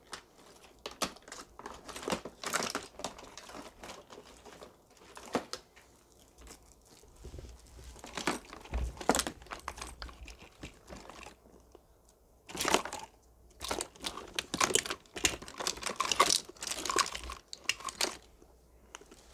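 Fidget toys being handled: irregular crinkling, rustling and clicking of plastic in short clusters with brief pauses.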